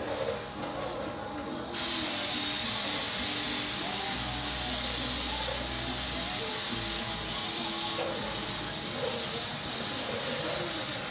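Compressed-air spray gun spraying bed liner, a loud steady hiss that starts suddenly about two seconds in as the trigger is pulled, with small dips as the spray is worked along the hull.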